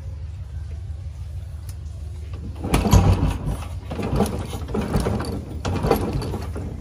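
Royal Enfield Bullet single-cylinder motorcycle being started: from about three seconds in, repeated clattering mechanical knocks, roughly one a second, as the engine turns over without yet catching.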